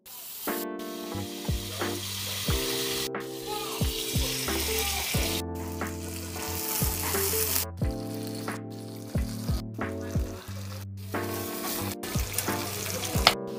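Butter sizzling in nonstick frying pans as French toast and an egg fry; the sizzle drops out briefly several times. Background music with a steady beat plays underneath.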